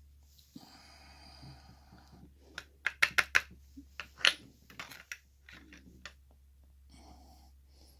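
Small metal lock parts being handled: a scraping rustle, then a quick run of sharp clicks and taps as pins and springs are worked out of a lock cylinder's chambers, the loudest click about four seconds in.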